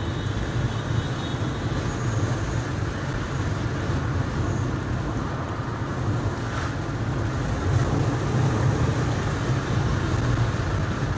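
Car driving at steady speed, heard from inside the cabin: engine and road noise with a steady low drone.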